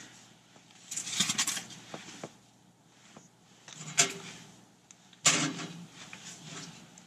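Rustling and knocks from hands working at the open firebox of a small steel G-stove, getting it ready to light. There is a sharp knock about four seconds in, and a louder clatter a second later.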